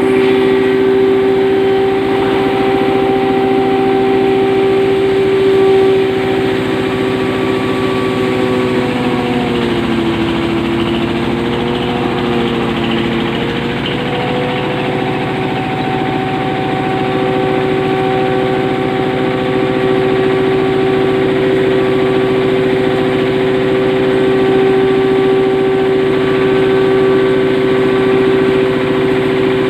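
Hammer mill feed grinder running at speed with a steady, pitched hum. Its pitch sags about nine seconds in and recovers after about five seconds.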